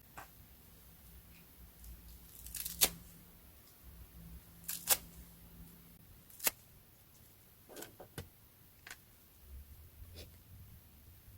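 A plastic slime container being handled and opened: a few sharp clicks with light crinkling, the three loudest about two seconds apart.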